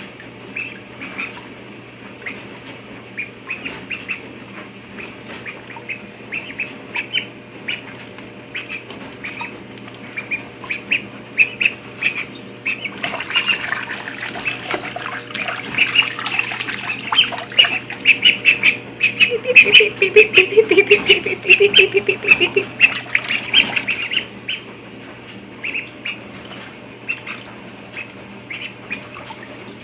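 Runner duckling peeping over and over in short high calls. About halfway through, for roughly ten seconds, water splashes as it flaps and bathes, and its peeps get louder.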